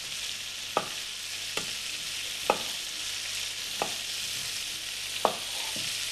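Butter sizzling steadily in a frying pan as it heats to foaming. A chef's knife knocks on a wooden chopping board several times, about once a second, as it cuts through a potato.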